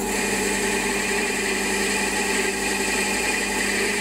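Warco metal lathe running, its tool turning down the diameter of an old V-belt handwheel: a steady machine whine with a high tone.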